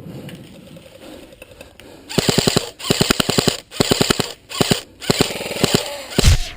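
Airsoft electric rifle (AEG) firing several short full-auto bursts, each a rapid even rattle of the gearbox cycling and shooting BBs, starting about two seconds in. A low thump comes near the end.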